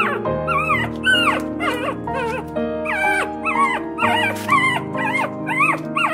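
Puppies whimpering and yipping in a quick string of short, high, arching cries, about two a second, over background music with sustained notes.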